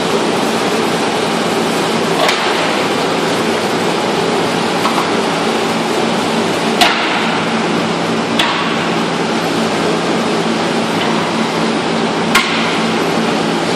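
Servo-driven horizontal packaging machine running with a steady mechanical noise and a faint hum, broken by four sharp clacks at uneven intervals, the loudest two about seven and twelve seconds in.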